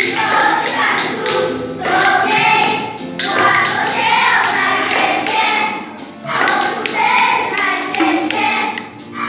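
A group of children singing a song together, in phrases with short breaths between them.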